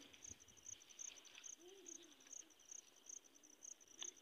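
Faint chirping of an insect: a short, high pulse repeating evenly about three times a second, over an otherwise near-silent background.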